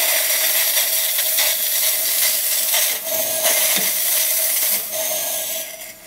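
ECM Synchronika espresso machine's steam wand opened with its joystick valve: a steady hiss of steam with a whistling tone in it. It eases off near the end and shuts off just before the end.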